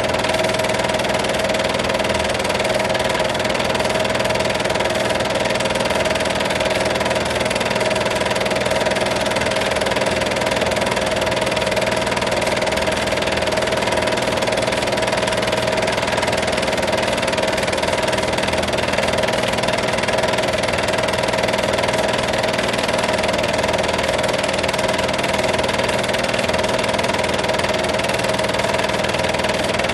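Film projector running steadily: an unbroken mechanical whir and hum with a steady hiss.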